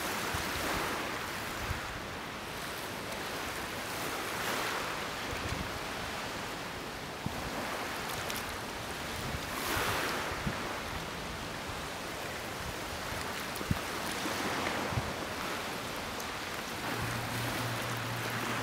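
Small waves washing in every few seconds over a steady hiss of wind. A low steady hum comes in near the end.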